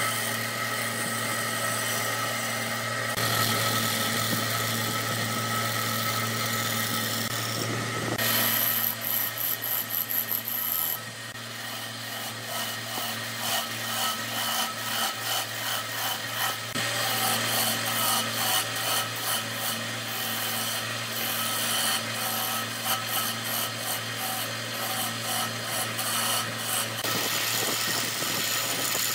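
Wood lathe running with a steady motor hum while a hand-held gouge cuts into a spinning wooden disc, a rough scraping that comes in quick rhythmic pulses in stretches.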